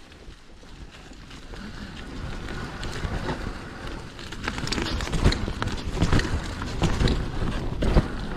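Mountain bike riding downhill on a trail: wind noise on the microphone grows louder as the bike picks up speed, with frequent knocks and rattles from the bike over bumps, thickest in the second half.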